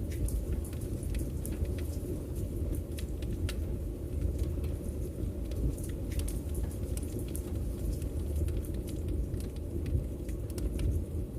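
Wood fire burning in a fireplace: a steady low rumble of flames with scattered sharp crackles and pops throughout.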